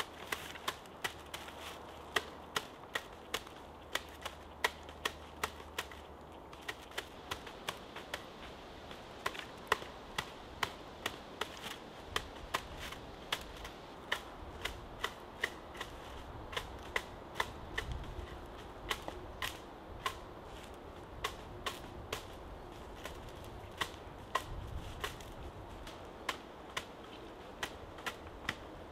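Flat wooden paddle striking the butt ends of water reed thatch to dress and blend it: sharp dry taps at an uneven rhythm, roughly one or two a second.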